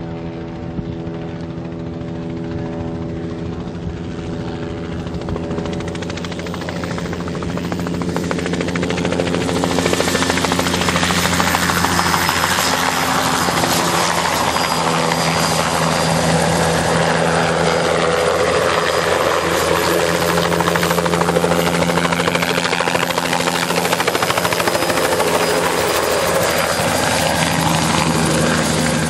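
Bell 206 JetRanger III helicopter flying low past, its two-bladed main rotor and Allison 250 turboshaft making a steady droning hum. It grows louder about eight seconds in and stays loud, with a higher whine that sweeps up and down as the helicopter moves past.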